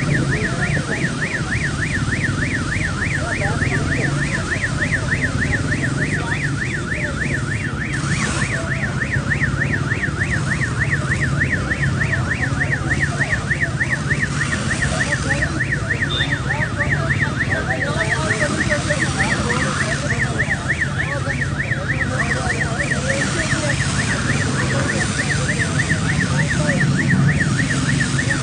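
Electronic alarm siren warbling quickly and evenly, about five rises and falls a second, without a break, over a steady low hum and the hiss of water spraying onto the smoking Range Rover.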